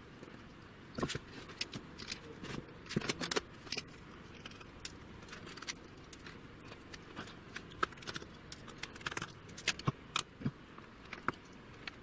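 Irregular light clicks and metallic taps as a small anodized aluminium case is taken apart by hand, with its small screws and parts being handled and set down.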